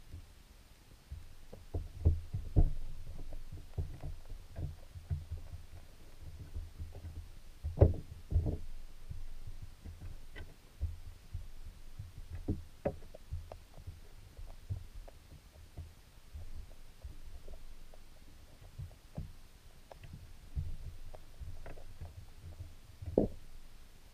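Muffled underwater sound of a camera submerged in a creek: a low rumble of the current with irregular knocks and clicks, the strongest about a third of the way in.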